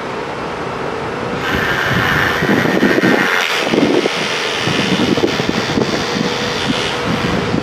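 Wind buffeting the microphone in low, uneven gusts. A rushing hiss comes in about a second and a half in and fades out near the end.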